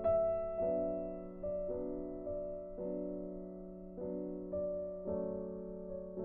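Slow, soft background piano music: a new chord struck about every half second to a second, each fading away.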